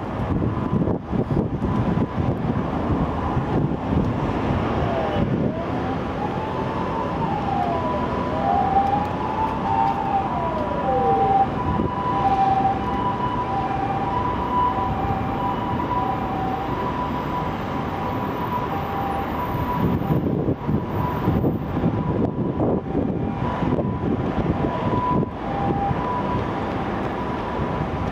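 Emergency vehicle sirens over steady city traffic noise, with wind buffeting the microphone. First a wailing siren rises and falls several times, then a two-tone siren alternates between a high and a low note for most of the rest, fading out near the end.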